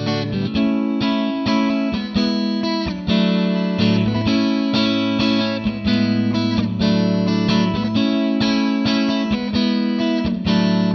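Fender Stratocaster electric guitar played clean through a modelled Fender Twin Reverb amp, chords strummed and picked with a new chord about every half second, the notes left ringing.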